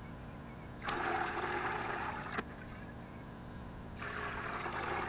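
Water sloshing and gurgling in a bucket as a plastic jug drilled full of holes is tested for how fast it fills through the holes. It comes in two spells of about a second and a half each.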